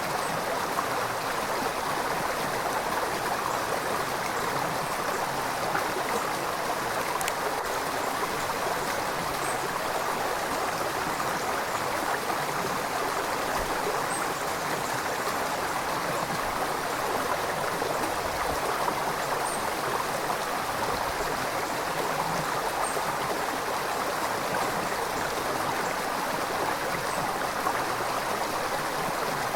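River water flowing steadily: a continuous, even rush of moving water.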